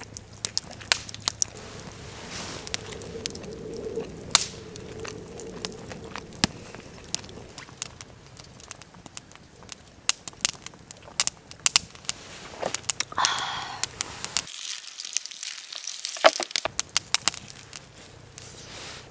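Wood campfire crackling, with many irregular sharp pops.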